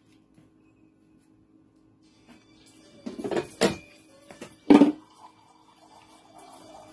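Several loud knocks and clattering sounds, as of objects being moved or set down, clustered a little past the middle. Faint music comes in after them.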